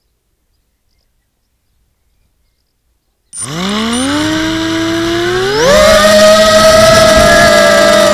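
Silence, then about three seconds in the HK250 mini quadcopter's brushless motors and propellers start up with a rising whine, climb in pitch again about two seconds later and settle into a steady high whine as the throttle comes up.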